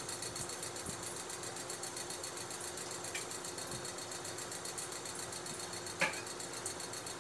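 Electric fan running with a steady hum and whir. A brief sharp sound stands out about six seconds in.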